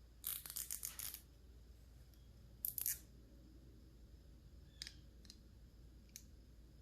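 Parts being handled and fitted by hand during hydraulic cylinder reassembly: a quick run of scraping, clicking strokes about a second long at the start, a shorter one around three seconds in, then a few faint ticks.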